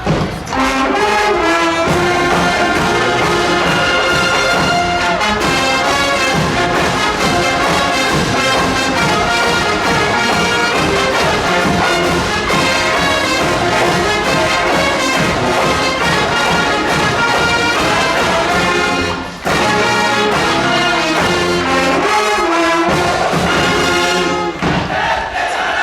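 A large school brass band playing loudly, trumpets and trombones to the fore over drums, with a short break in the music a little after the halfway point before it comes back in.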